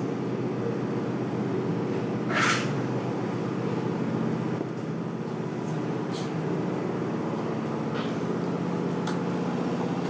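Low-profile belt conveyor running, its electric gearmotor drive giving a steady hum as the freshly tensioned belt turns over the rollers. The conveyor is being run to check the belt's tracking. A short hiss comes about two and a half seconds in, and a few light clicks follow.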